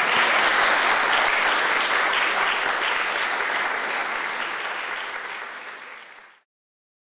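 Audience applauding, loudest at the start and tapering, then cut off abruptly about six seconds in.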